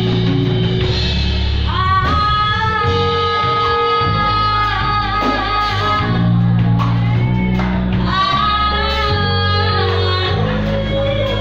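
Live band playing: a woman sings two long phrases with held notes over electric guitar, bass guitar, piano and drums.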